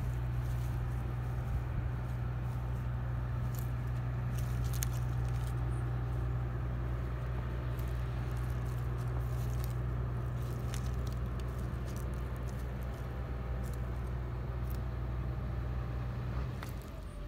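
A steady low rumble, with faint scattered ticks over it; the rumble drops away suddenly near the end.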